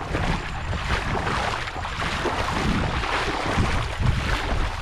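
Water splashing and sloshing as a person and a dog wade and run through shallow floodwater, with wind rumbling on the microphone.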